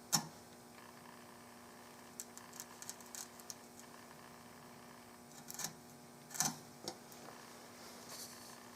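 Hand tools clicking and knocking on a walnut gun stock as it is cut: a sharp knock at the start, a run of light clicks a couple of seconds in, and three more knocks a little after halfway, over a faint steady hum.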